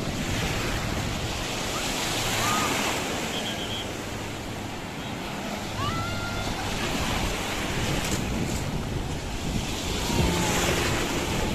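Sea surf breaking and washing through shallow water at the shoreline, a steady rushing wash that swells and eases as the waves come in.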